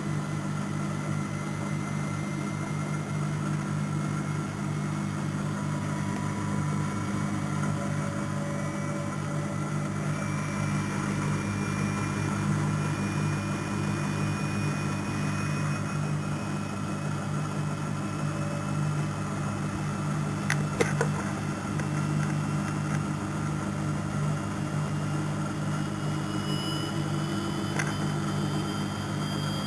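Neff washing machine on its spin cycle, its motor whine rising slowly in pitch over a steady low hum as the drum speeds up toward 1000 rpm. A few faint clicks come about two-thirds of the way through.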